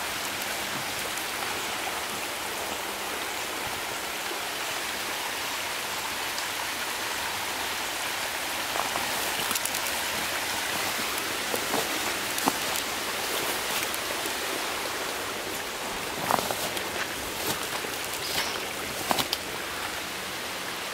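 Steady hiss of lake water spilling over the top of an earthen levee and running down a muddy wooded gully. A few sharp snaps and rustles of footsteps through brush stand out, the loudest about two-thirds of the way in and near the end.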